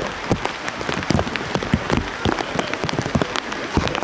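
Heavy rain pattering on a makeshift plastic rain cover wrapped around the camera: a dense, irregular run of close, sharp drop taps over a steady hiss of rainfall.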